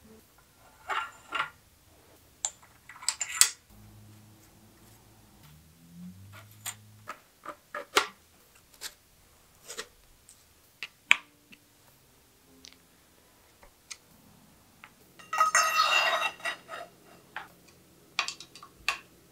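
Scattered sharp clicks and clinks of metal bicycle parts and tools being handled on the workbench, with a noisy burst lasting about a second near the end.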